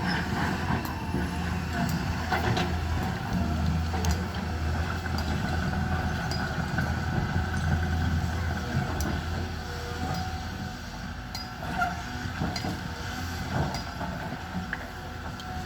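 Caterpillar excavator's diesel engine running steadily with a constant low hum, with scattered sharp clicks and knocks throughout; it grows slightly quieter about two-thirds of the way in.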